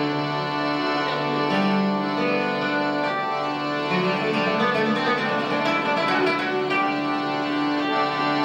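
Acoustic guitar being played in Sardinian traditional style, plucked notes over long held low tones.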